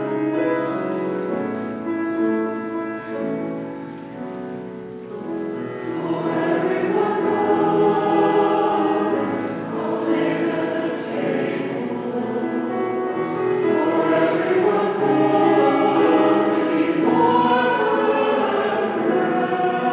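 Church choir singing a slow, sustained choral piece in several parts. It is softer about four seconds in, then swells fuller from about six seconds.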